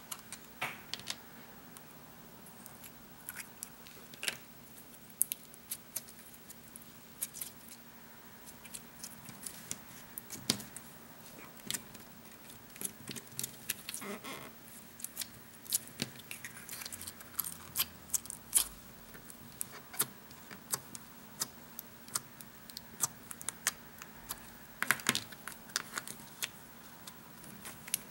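Cheap dollar-store putty being squeezed, poked and slapped by hand for ASMR, giving irregular sharp little clicks and thwacks, sparse at first and coming more often from about halfway.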